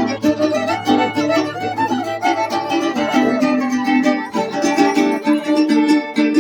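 Music played on string instruments, plucked strings keeping a steady rhythm under a bowed melody.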